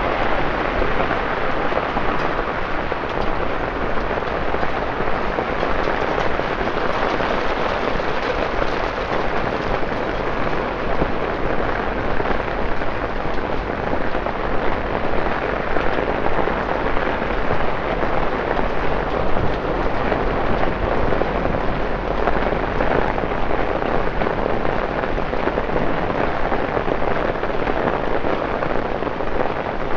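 Torrential rain falling steadily on wet road and pavement: a dense, unbroken hiss of drops at an even level.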